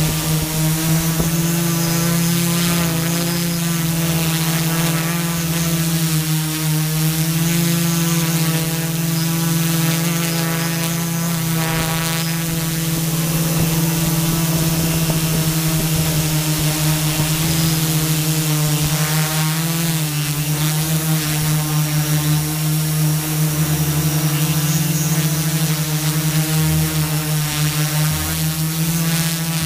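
A small camera drone's motors and propellers buzzing steadily, heard from the camera on board, the pitch shifting slightly now and then as it manoeuvres.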